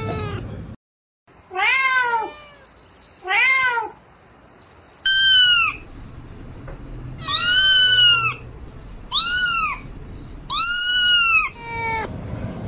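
Kittens meowing, about seven separate meows, each rising and then falling in pitch.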